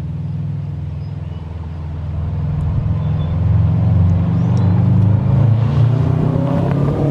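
2019 Subaru WRX STI's turbocharged flat-four, warm and running through a freshly installed Invidia R400 cat-back exhaust, as the car drives up toward and past the listener. The low engine note grows louder from about two seconds in and is loudest a little past the middle.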